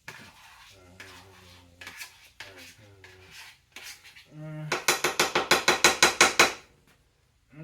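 Metal utensil clattering against a cooking pot or pan: a few light knocks, then a loud, rapid run of about a dozen clinks over roughly two seconds a little past halfway.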